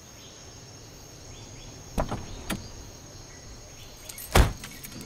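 Car door sounds over a steady hiss with a faint high whine: two sharp knocks about two seconds in, then a loud heavy thump of a car door shutting near the end.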